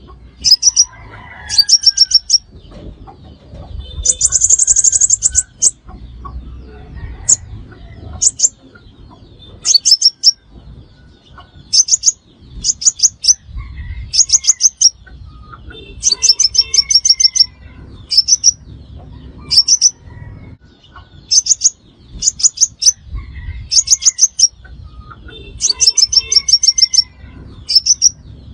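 Sunbird calling: repeated bursts of sharp, very high chips in quick runs of three to five notes, a fresh run every second or two, with one longer buzzy trill about four seconds in.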